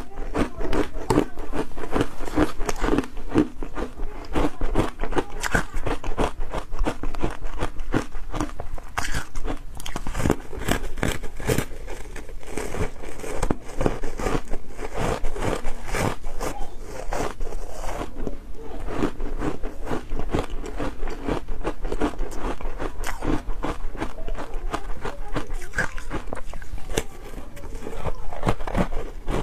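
Close-miked biting and chewing of powdery matcha-coated ice: a dense, continuous run of soft crunches and crackles, several a second.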